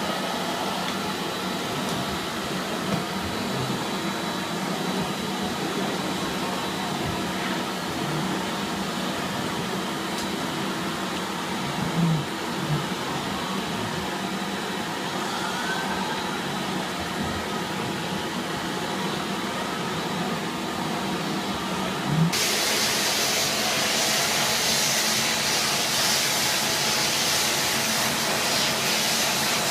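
Neptune AquaFilter water-filter vacuum cleaner running steadily, with a few light knocks. About two-thirds of the way through, its hiss suddenly gets louder and brighter and stays that way.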